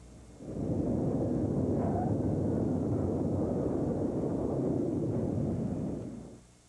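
Jet aircraft landing on an aircraft carrier's flight deck: a steady rushing engine noise that comes in about half a second in and fades out near the end.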